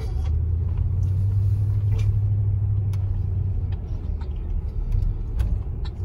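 Low, steady rumble of a car driving slowly, heard from inside the cabin, with a few faint clicks.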